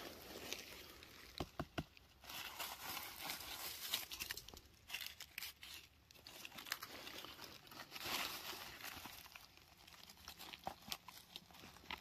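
Dry fallen leaves rustling and crackling as a hand works through the leaf litter and pulls a porcini from the soil, with a few sharp snaps about a second and a half in and again near the end.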